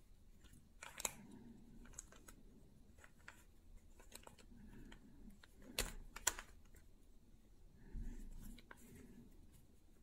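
Plastic 3x3 Rubik's cube being turned by hand: irregular clicking and clacking of the layers as they rotate, with a few sharper snaps about a second in and around six seconds in.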